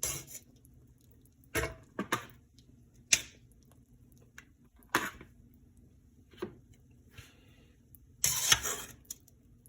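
A utensil knocking and scraping against a cooking pot in short separate clinks, with a longer clatter near the end, as boiled chicken pieces are lifted out of the pot.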